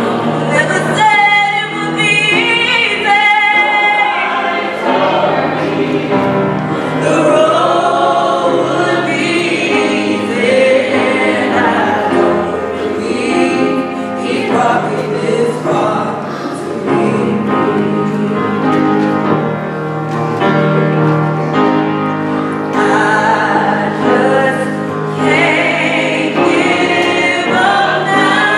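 Gospel music with a choir singing over accompaniment, the voices wavering with vibrato.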